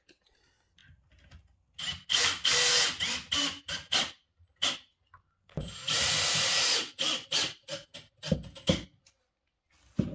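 Cordless drill driving screws to fix the back rail of a timber base frame down. There are two runs of about a second each, each followed by a few short trigger blips.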